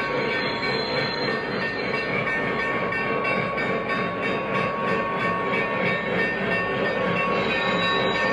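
Lionel Legacy Union Pacific Big Boy O-gauge model steam locomotive running along the track: a steady, unbroken mix of wheel-on-rail rumble and drive noise with its built-in steam sound effects.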